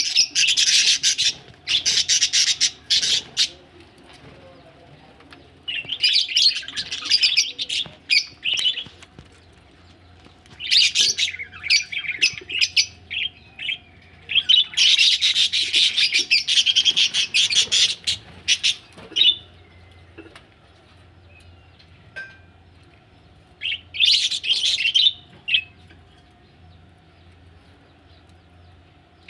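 Budgerigars chirping and chattering in bursts of a few seconds each, five times, with quieter gaps between.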